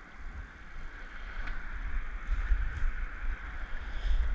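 Wind rumbling on the microphone of a head-worn camera, growing stronger about two seconds in, over faint water sounds from a kayak being paddled on a calm sea.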